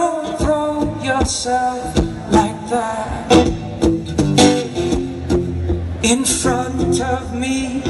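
Live acoustic guitar strummed steadily while a man sings, amplified through a stage sound system.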